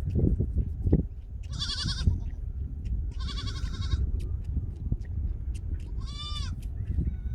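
Baby goats bleating: two high, wavering bleats about a second apart, then a shorter rising-and-falling bleat near the end, over a steady low rumble.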